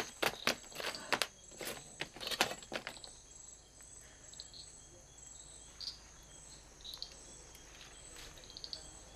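Wood fire in a hearth crackling and popping, with a quick run of sharp cracks in the first three seconds and only an occasional faint pop after that. Crickets chirp steadily and high-pitched throughout.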